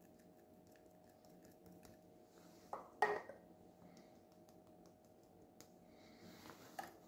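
Light clicking and tapping from a hand seasoning raw ground meat in a tagine, with a sharp knock about three seconds in and a smaller one near the end.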